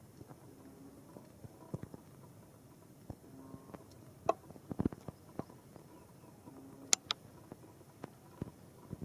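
Rain dripping: scattered, irregular drops tapping and plopping on hard surfaces over a faint background hiss, with a few louder drops about four to five seconds in and again near seven seconds.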